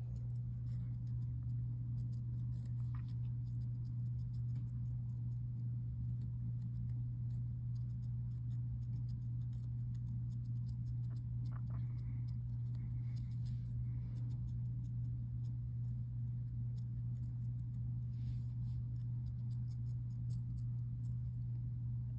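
Hamster nibbling cucumber: faint, scattered small crunchy clicks and rustles, over a steady low hum that is the loudest thing throughout.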